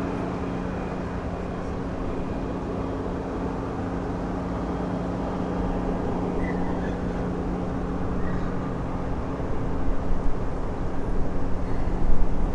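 Steady low drone of a Project 1565 river cargo ship's engines running as it gets under way, with a constant two-note hum over a rumble. Near the end the rumble turns louder and uneven.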